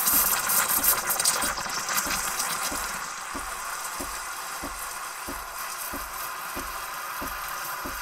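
CASABREWS CM5418 espresso machine's steam wand hissing as it steams and aerates milk in a stainless pitcher, stretching it into fine microfoam. The hiss is loudest in the first few seconds and then eases, with a regular low pulse about three times every two seconds underneath.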